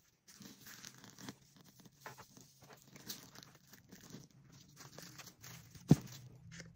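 Rustling and tearing handling noise with scattered small clicks, and one sharp knock near the end.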